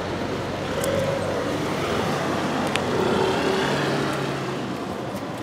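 Steady road traffic noise, with a couple of faint clicks.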